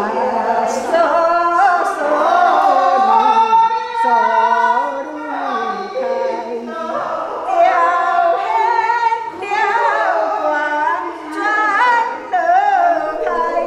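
A woman singing unaccompanied in long, wavering melodic lines with no clear words, a spirit-medium's trance chant to the Mother goddess. Quick trills near the end.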